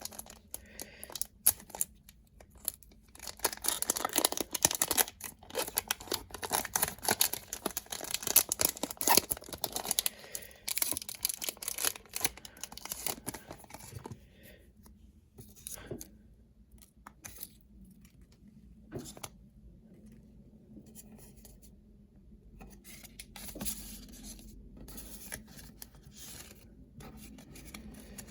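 Trading-card booster pack being opened: the wrapper crinkles and tears for about ten seconds, then quieter, scattered rustles and light taps as the cards are handled.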